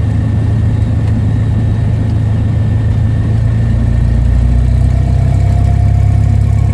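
Cessna 172's piston engine and propeller droning steadily at low taxi power, heard from inside the cabin. The drone grows a little fuller about four seconds in.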